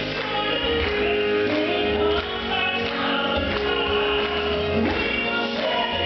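Southern gospel quartet performing live: voices singing in harmony over instrumental backing, with a steady beat.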